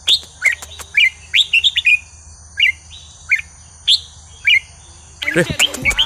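Red-whiskered bulbul song: short, bright whistled phrases repeated at intervals, sparser in the middle, then a denser, louder run of notes starting about five seconds in.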